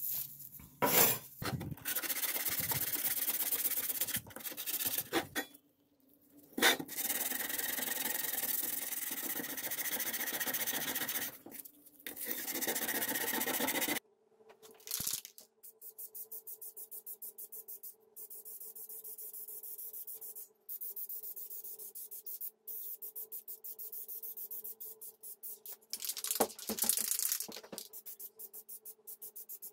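Abrasive sanding or scrubbing on rusty metal: a rough rasping in long passes broken by short pauses. About halfway through it stops, and a quieter steady hum with a fast, faint ticking takes over.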